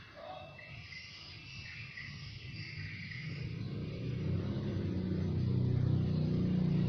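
A motor vehicle's engine drones low and grows steadily louder over the last few seconds, as if approaching. Faint high chirps, like small birds, come in the first half.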